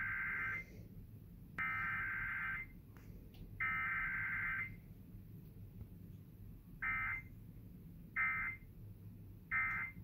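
Emergency Alert System SAME data bursts played through a TV speaker, marking a Required Weekly Test. The first is three header bursts about a second long each, the first already under way, with about a second between them. Then come three short end-of-message bursts about a second apart, starting about seven seconds in.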